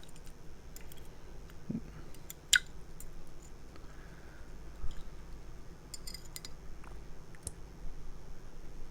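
A few faint, sharp clicks and light taps of small fountain pen parts being handled and set down.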